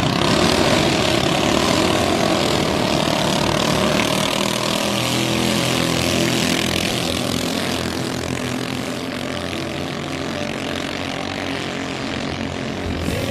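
Engines of small racing boats running flat out, a steady buzzing drone over a broad hiss, easing slightly in the second half.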